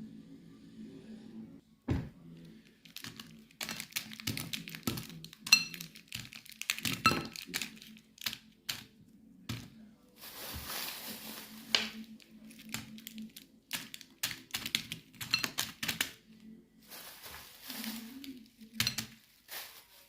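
A run of irregular knocks, taps and clinks from small hard objects being handled, with two longer stretches of rustling or scraping noise, over a faint steady low hum.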